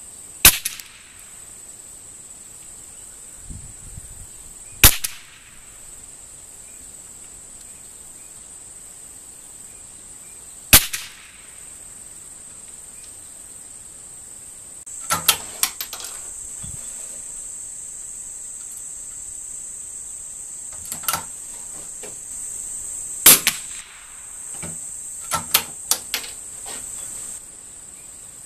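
.22 rimfire target rifle firing single shots a few seconds apart, each a sharp crack, with a pair of shots close together in the middle and a quicker run near the end. A steady high-pitched insect drone runs underneath.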